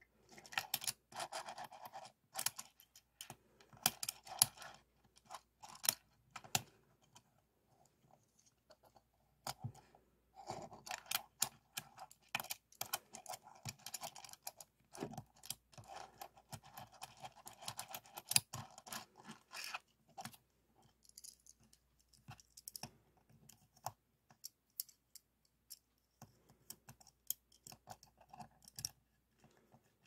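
Fingertips tapping, clicking and rattling small hard-plastic toy cars: quick runs of light plastic clicks in bursts, busiest in the middle stretch and sparser toward the end.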